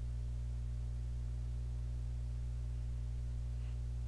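A steady low hum with nothing else heard.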